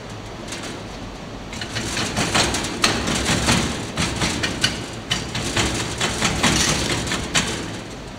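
Hand rammer packing molding sand into a flask: a quick run of dull thuds with gritty crunching. It starts about a second and a half in and stops near the end.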